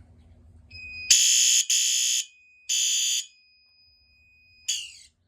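Fire alarm horn strobes sounding three loud, shrill blasts of about half a second each, set off by a manual pull station during an audible walk test. A steady high whine runs under them and on after them, and a short falling sweep comes near the end.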